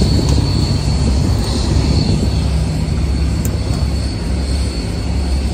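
Airliner cabin noise: a steady, loud low rumble of jet engines and airflow, with a thin constant high whine over it.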